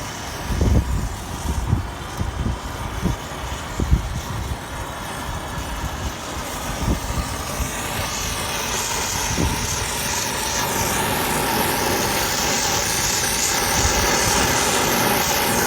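Oxy-acetylene brazing torch burning with a steady hiss that slowly grows louder from about eight seconds in. Irregular low thumps in the first half.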